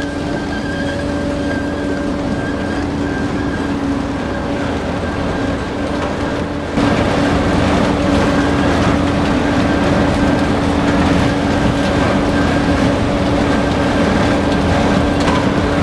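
Grimme Maxtron 620 self-propelled sugar beet harvester running, a steady engine and machinery hum. About seven seconds in it gets louder and denser as the rattle of beets tumbling over the cleaning rollers comes to the fore.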